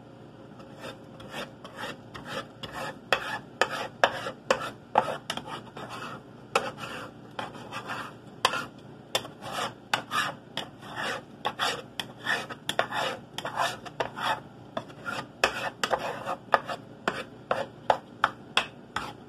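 A spatula scraping and chopping through scrambled eggs with bacon bits against the bottom of a frying pan, in short irregular strokes about two to three a second.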